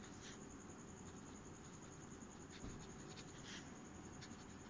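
Faint scratching of a fountain pen nib writing on lined paper, in a few short strokes.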